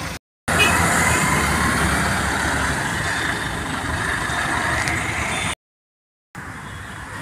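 Heavy vehicle engine running, loud and steady, broken twice by short dead silences where the recording cuts.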